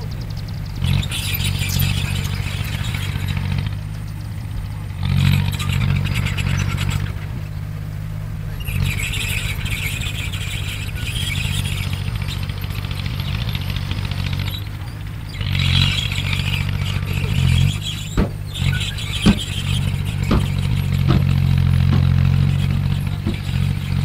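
Komatsu D20P bulldozer's diesel engine running steadily under load, with spells of metallic clatter and squeal from its steel tracks as the machine moves, and a few sharp knocks near the end.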